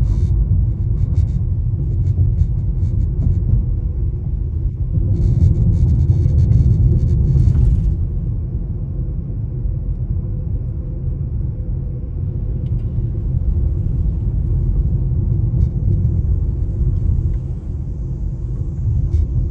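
Low road rumble of a Honda CR-V driving over a bumpy road. Bursts of rapid clicking rattle run through the first eight seconds: this is the abnormal noise the car makes on uneven surfaces.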